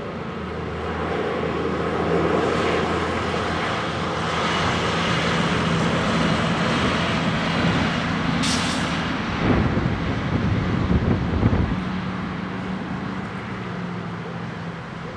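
Drone of a passing engine with a steady low hum, building over the first couple of seconds and fading slowly over the last few. A short high sound about eight seconds in, and some low rumbling bumps a little later.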